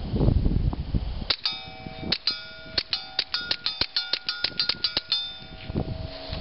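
Suppressed Walther P22 .22 LR pistol fired in a quick string of shots, each crack followed by the ringing ping of an AR500 steel plate being hit. Low rumbling noise comes before the string starts, about a second in.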